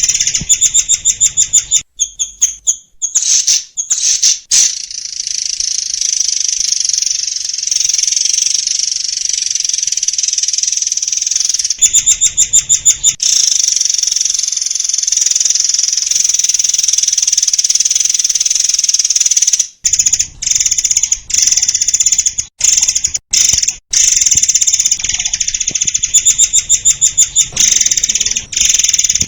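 Murai air (forktail) singing a loud, high-pitched, dense song: long unbroken stretches of rapid notes, broken by bursts of very fast repeated trills.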